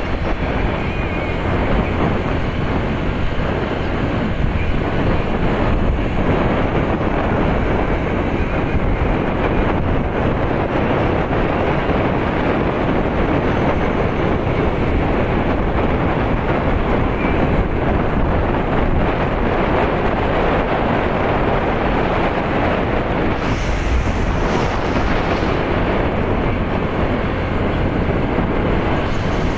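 Steady wind and road noise from a vehicle driving at speed, with wind rushing over the microphone; a brief louder hiss comes about three-quarters of the way through.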